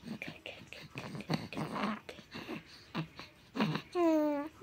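Close-up kisses and breathy mouth sounds on a baby: a string of short smacks and puffs. Near the end comes a high, drawn-out voice that falls in pitch.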